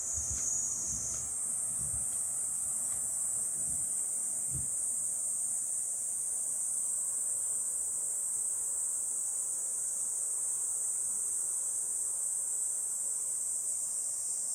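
A steady, high-pitched insect chorus, a continuous shrill buzz that shifts slightly higher about a second in and holds unbroken.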